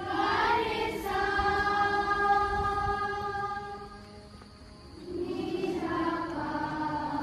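A group of students singing a prayer in unison, holding long notes. The singing dips about four seconds in, and a new phrase begins about a second later.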